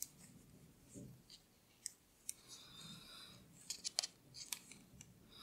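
Faint, scattered clicks of 9 mm metal knitting needles touching as 1x1 rib stitches are worked in chunky yarn, several in quick succession about four seconds in, with a soft rustle just before the middle.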